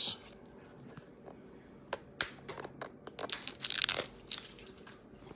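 Scattered handling noises: a few sharp clicks about two seconds in, then a brief crinkling rustle around three to four seconds in, over a faint steady hum.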